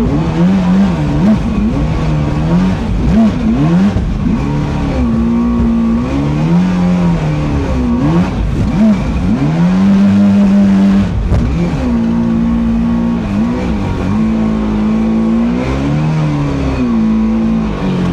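Small boat motors running under load, their pitch rising and falling again and again as the throttle changes, over a steady rush of water.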